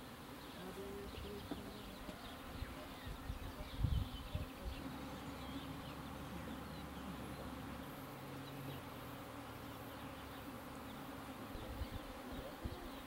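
Faint buzzing of flying insects over a grassy field, with a brief low thump about four seconds in.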